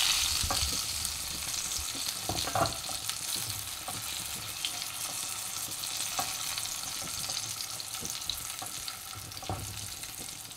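Hot oil sizzling in a nonstick wok as fried spiny gourd (kakrol) slices are lifted out with a silicone spatula, with a few soft knocks of the spatula against the pan. The sizzle slowly eases.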